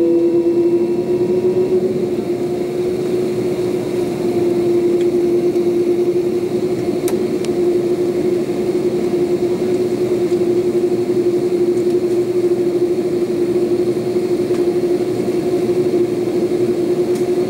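Airbus A330-300 jet engines running at low taxi power, heard inside the passenger cabin: a steady whine on one pitch, edging up slightly in the first couple of seconds, over a constant cabin rumble.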